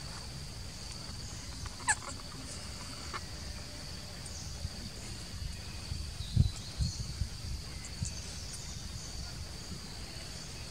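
Steady high insect drone, with a short high squeak about two seconds in and a few low thumps around six to seven seconds.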